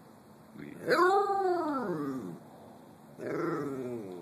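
Cockapoo (Cocker Spaniel–Poodle mix) howling: one long howl about half a second in that rises sharply and then slides slowly down, and a second, shorter howl near the end.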